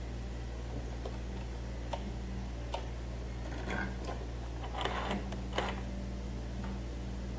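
Light clicks and taps about a second apart, with brief rustling about four and five seconds in, from thread and sewing things being handled while changing to a new thread; a steady low hum sits underneath.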